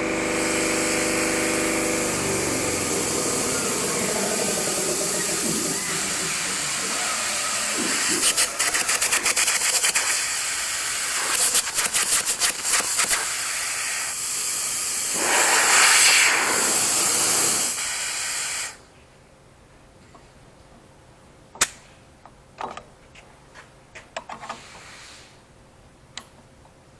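Compressed air at about 175 psi hissing through a homemade burner's air line, with fluttering, sputtering gusts in the middle as the flow changes. It cuts off abruptly about 19 seconds in, followed by a few light clicks and knocks.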